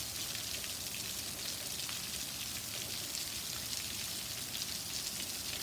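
Heavy rain pouring down, a steady hiss of drops pattering on surfaces.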